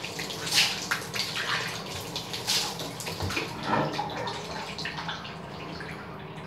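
Tap water running and splashing as something is rinsed with water after cleaning with muriatic acid. The splashing is busiest for the first few seconds, then settles to a steadier, quieter flow.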